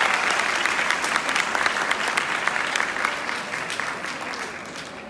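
Audience applauding with many hands clapping, the applause dying away toward the end.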